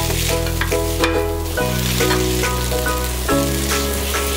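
Pad thai noodles and bean sprouts sizzling as they are stir-fried in a non-stick wok, with the utensils clicking and scraping against the pan. Background music with held bass notes plays along.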